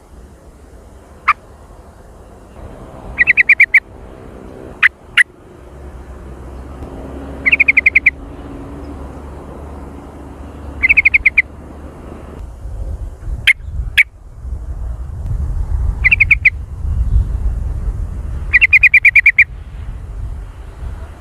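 Yellow-vented bulbul (trucukan) calling: five loud bursts of rapid chattering notes, each about half a second long and a few seconds apart, with single sharp chips between them.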